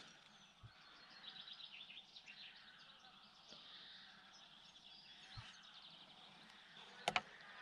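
Faint birdsong: many short, high chirps, with two sharp clicks close together near the end.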